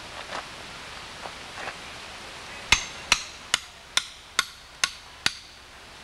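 A hammer striking the back of a hatchet set into the end of an upright log, driving the blade in to split the log. A few light taps, then seven hard, ringing metal-on-metal blows in quick, even succession, a little over two a second.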